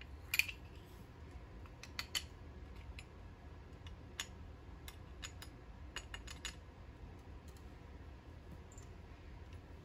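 Scattered light clicks and taps of small objects handled on a bench: a green plastic kinetic bullet puller and a metal powder pan being picked up and set down. The sharpest click comes about half a second in, with a quick run of clicks around six seconds in.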